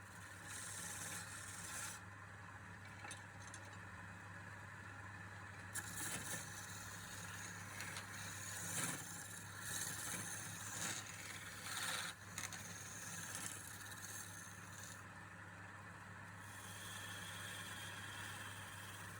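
Scraping of a turning tool against wood on a running wood lathe, coming in irregular bursts through the middle, over a steady low motor hum.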